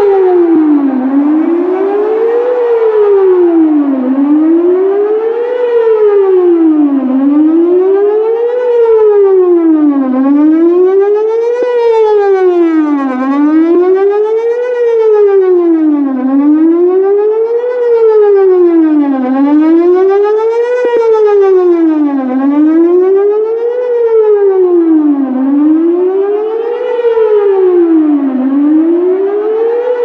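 Whelen WPS-4008 electronic siren with a rotating speaker array, sounding a wail during its monthly test. The tone sweeps smoothly up and down about every three seconds.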